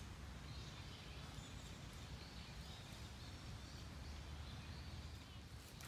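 Quiet outdoor ambience: a steady low rumble of wind on the microphone, with faint, high bird chirps now and then.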